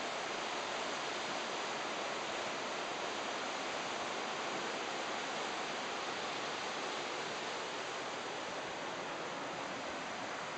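Steady rushing of a fast river current, the water churning over a riffle of white water.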